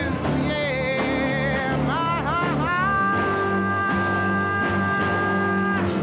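Live soul-jazz performance: a woman singing with grand piano and band. The second half holds one long steady note.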